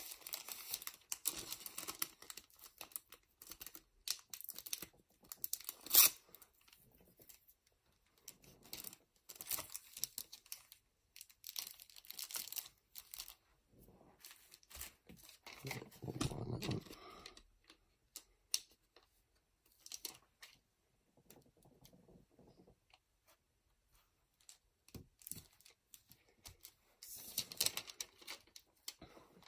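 Clear plastic bag and foil trading-card booster pack crinkling and rustling as the pack is slipped into the bag and sealed, with the peel of adhesive strips. The handling comes in intermittent bursts, with one sharp click about six seconds in.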